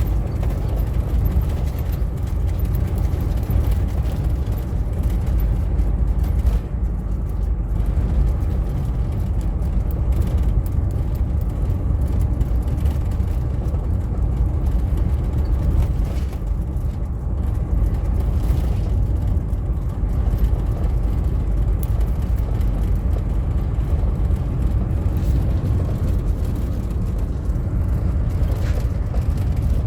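Steady low road rumble of a car being driven, with tyre and engine noise.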